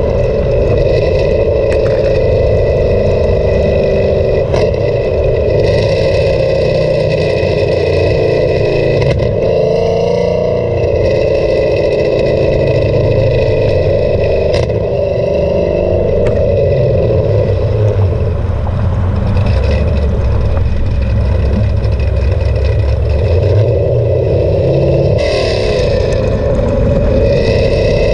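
Exhaust of a cammed Camaro SS V8 with an MBRP exhaust system, heard close at the tailpipe as the car is driven. It runs steadily, with only small rises and falls in pitch.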